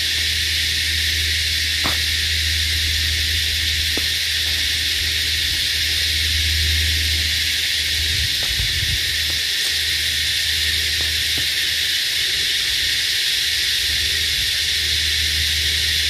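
Steady, high-pitched, continuous chorus of insects, with a steady low hum underneath.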